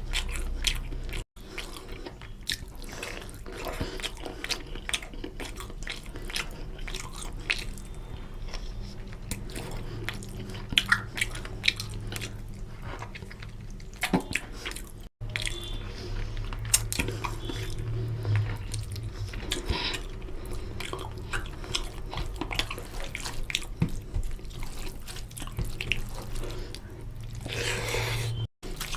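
Close-up wet eating sounds of chicken curry with rice and gravy: a run of small sticky clicks, smacks and squelches from chewing.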